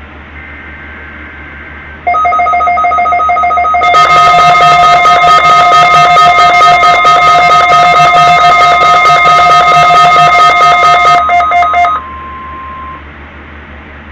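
NOAA Weather Radio weekly test of the warning alarm. Short warbling digital data tones come first. About two seconds in, a loud shrill alarm sounds as a steady tone, then turns into rapid, even beeping from about four seconds to about twelve seconds. A plainer single tone then holds for about a second.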